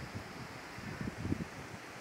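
Wind gusting against the microphone, with low rumbling puffs around a second in, over a steady hiss of wind through swaying coconut palm fronds.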